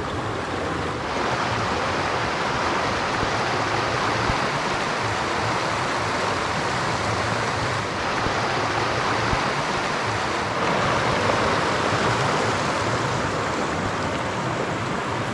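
Steady rush of running water, growing a little louder about a second in.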